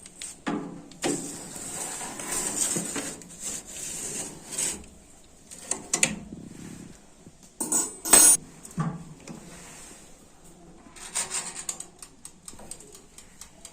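A metal oven tray lined with aluminium foil scraping and rubbing as it is handled, with sharp metallic knocks about six and eight seconds in and a run of small clicks near the end.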